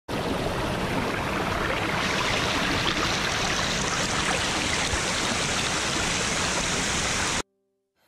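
Shallow stream rushing and splashing over rocks, heard close to the water as a steady, even rush. It cuts off suddenly about seven and a half seconds in.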